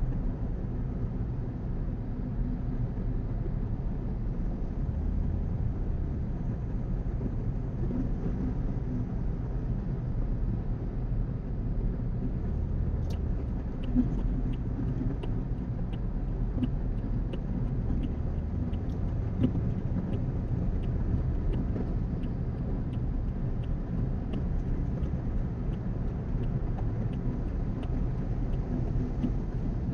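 Road noise heard inside a car cruising on a highway: a steady low rumble of tyres and engine. About halfway through, the turn-signal indicator starts ticking evenly, about one and a half ticks a second.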